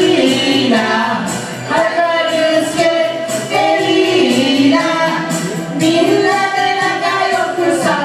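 Singing with musical accompaniment: a sung melody that carries on without pause.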